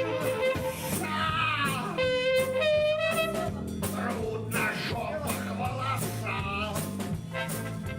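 A live band playing an instrumental passage: drums keeping a steady beat over bass and guitar, with a lead melody line that bends and wavers in pitch.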